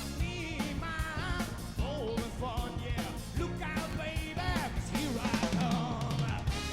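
A live soul band playing a song: a lead singer's voice gliding over drums, bass and band.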